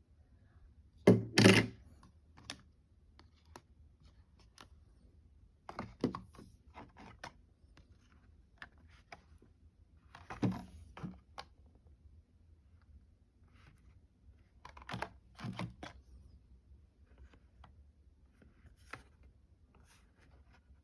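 Scattered clicks and clattering knocks of small objects being handled, in a few short clusters. The loudest is a pair of clatters about a second in.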